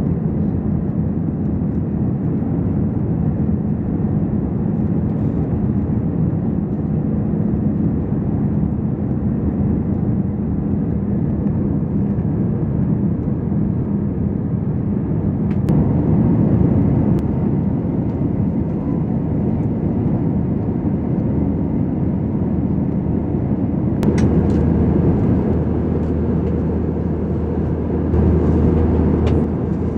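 Steady engine and airflow noise inside the cabin of an Airbus A320 in flight, from its two IAE V2527 turbofans. The noise shifts in character about halfway through and again near the end, with a deeper hum in the last few seconds and a few faint clicks.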